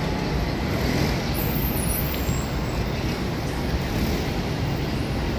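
Steady city street traffic noise: a continuous rumble of passing cars and buses with the general hum of a busy street.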